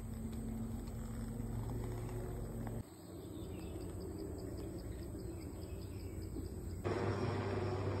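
Forest ambience with insects and birds, broken by abrupt cuts. About seven seconds in, a louder, steady noise with a low drone takes over: a helicopter flying overhead.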